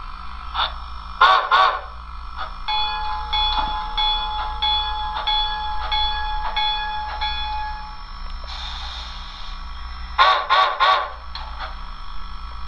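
SoundTraxx Tsunami2 TSU-2200 steam sound decoder playing through the small speaker of an HO-scale steam locomotive on its first test run after installation. There are two short whistle toots, then the bell ringing about twice a second for several seconds, a hiss of steam, and three more short toots near the end.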